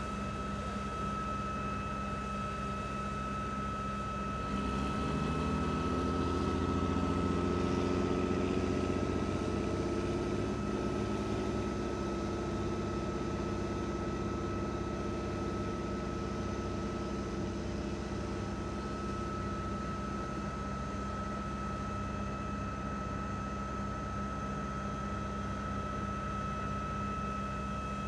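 Aircraft rescue firefighting truck's engine running, revving up about four seconds in with a rising pitch as it drives the pump for the roof turret's water stream, then holding steady until about twenty seconds in. Under it, a steady hum with a constant high whine.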